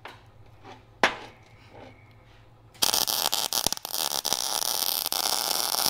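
MIG welder running a bead on steel: a steady, dense crackling hiss of the arc that starts about three seconds in, after a quiet stretch with a single sharp click near one second.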